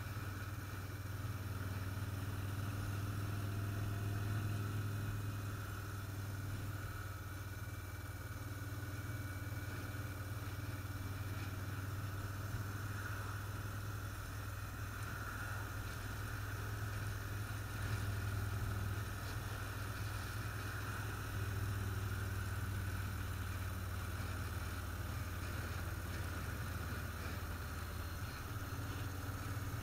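Motorcycle engine running at a steady cruise, a low drone with small swells, under an even rush of wind and road noise.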